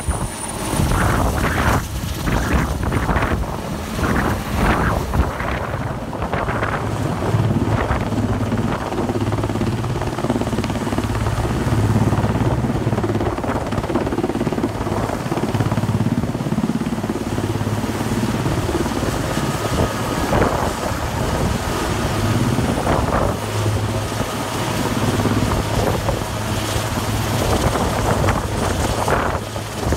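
Super Puma helicopter's rotor and twin turbines running steadily and loudly as it hovers and then climbs away with a load slung on a long line.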